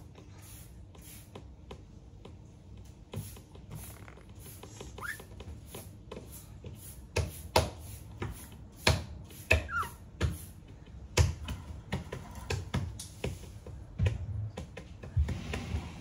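A pet budgerigar moving about its wire cage: scattered sharp clicks and taps that grow busier about halfway through, with two brief soft chirps, the second falling in pitch.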